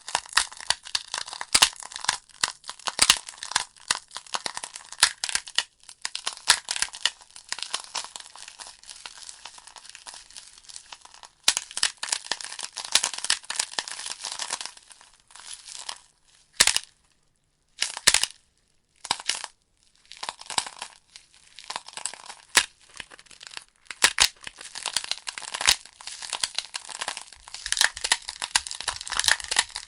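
Wood logs burning in a fireplace, crackling and popping with a steady hiss. The sound drops out briefly several times around the middle.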